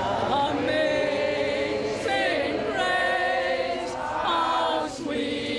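Voices singing slowly in long held notes that step from one pitch to the next, with a brief break near the end.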